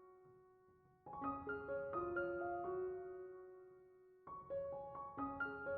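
Soft background piano music, single notes and chords in short phrases. It comes in about a second in and pauses briefly near the middle before resuming.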